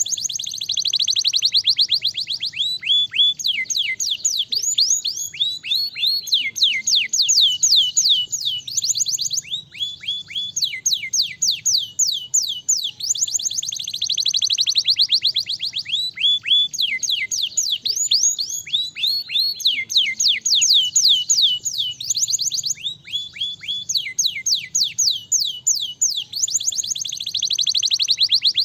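Domestic canary singing a long, continuous song of rapid trills: quick runs of high, downward-sweeping notes, switching to a new trill every second or two with only brief breaks.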